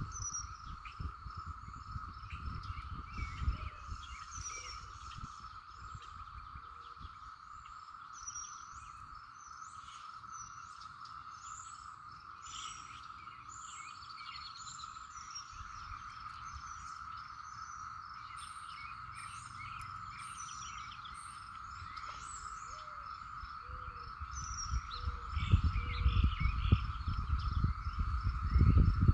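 Outdoor night-time insect chorus: a steady drone with an even pulsing chirp above it, and birds chirping over the top. Low rumble of wind or handling on the microphone at the start and again near the end.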